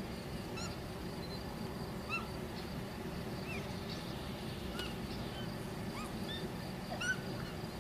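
Short high-pitched animal calls, quick chirps repeated about every second and a half, over a steady background hiss.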